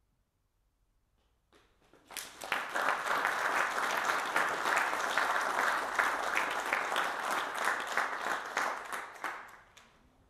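Audience applauding at the end of a trombone quartet's playing: the clapping starts about two seconds in, after a moment of silence, holds steady and dies away near the end.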